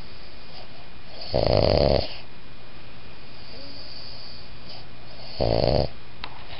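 A Boston Terrier–pug mix dog snoring in its sleep: two snores, about a second and a half in and again near the end, some four seconds apart, with a faint hiss of breath between them.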